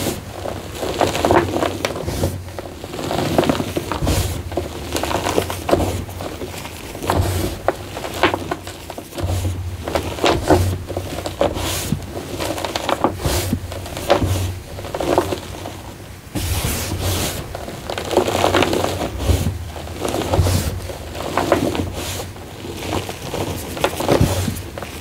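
Rubber-gloved hands crushing and rubbing soft gym chalk mixed with fine sand, with irregular crunching and gritty scraping as the crumbly lumps break into powder.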